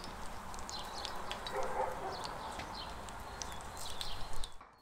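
Small birds chirping repeatedly over a steady background hiss, with faint sounds of a knife cutting lamb meat off the bone. The sound cuts off abruptly near the end.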